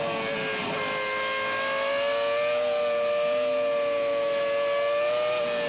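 Onboard sound of a BAR Honda Formula 1 car's Honda V10 engine running at high revs under power, its pitch held nearly steady, rising a little and then dipping slightly near the end.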